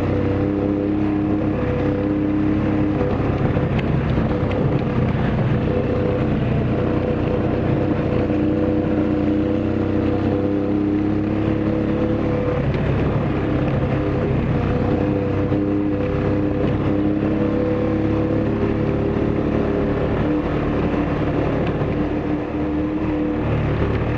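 ATV engine running at a steady cruising speed along a rough dirt trail, heard from on board, with a rushing noise beneath the engine note. The engine eases briefly about twelve and twenty-two seconds in.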